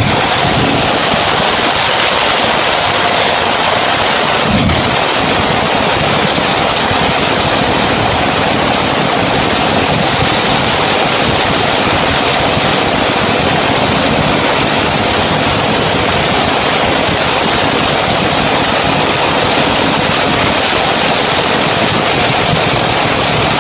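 Modified pulling tractor's multiple V8 engines running together, loud and steady, a dense even noise with no change in speed.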